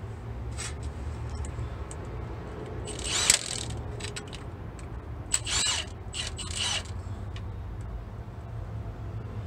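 Cordless impact tool running in three short bursts, about three seconds in and twice more a couple of seconds later, on the valve body bolts of a 4R100 automatic transmission, with a few light clicks in between.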